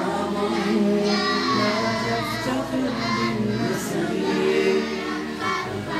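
Children's voices reciting in a melodic chant, typical of Qur'an recitation.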